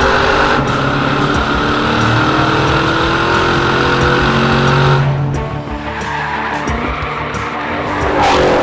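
Corvette C7's V8 on a Borla exhaust running hard, with tyres squealing. About five seconds in the engine sound drops away, and a rising sweep comes near the end, with music underneath.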